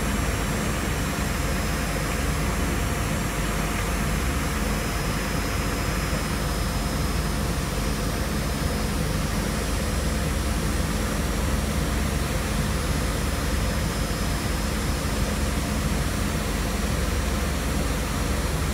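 Chencan CC-M1325A CNC router running, its spindle giving a steady high whine as the bit cuts through a wooden board, over a steady low hum.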